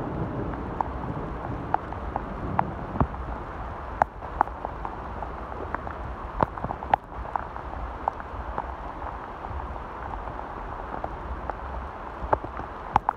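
Steady rain falling, with scattered sharp ticks of single drops landing close by.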